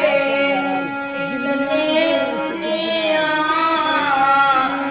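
A voice singing a slow, wavering devotional lament over steady held accompanying notes.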